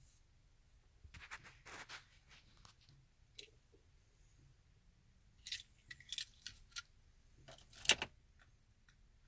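Light metallic clicks and jingling in short clusters: a group about a second in, more from about five and a half to seven seconds, and the loudest near the end.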